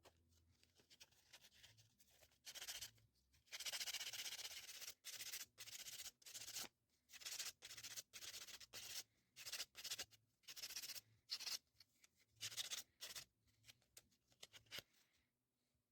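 Sandpaper rubbed back and forth by hand over a small wooden piece, in quick, uneven strokes that start about two seconds in and stop shortly before the end.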